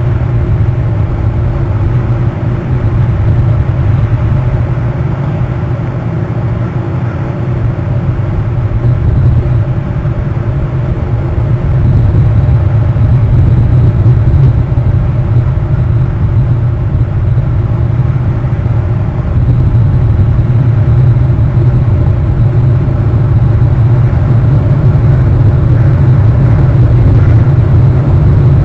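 Steady, loud low rumble with no distinct events.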